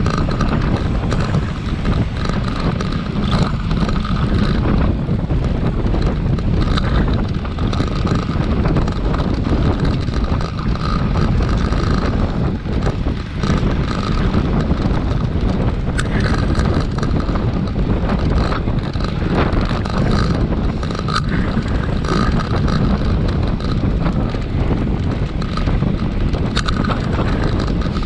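Steady wind noise on a GoPro action camera's microphone, with the rumble of a bicycle in motion underneath.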